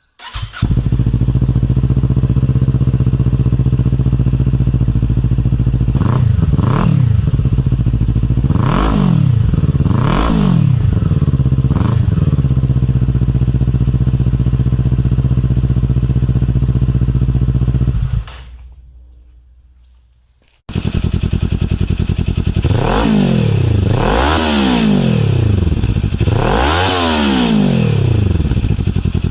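2019 Kawasaki Z400's parallel-twin engine idling through its exhaust and being blipped: five quick revs, then it drops away. After a brief silence it idles again with three more revs.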